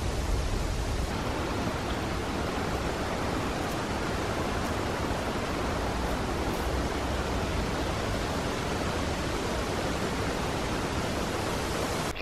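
Steady rushing noise of wind in the forest, with wind rumbling on the microphone for about the first second.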